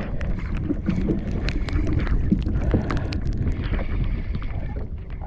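Wind buffeting the microphone on a kayak at sea, a heavy rumbling rush, with many irregular sharp clicks and knocks scattered through it.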